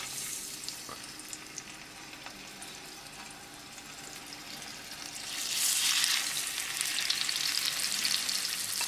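Sockeye salmon fillets sizzling in hot olive oil in a nonstick frying pan. The sizzle grows louder about five seconds in, as a second fillet is laid in.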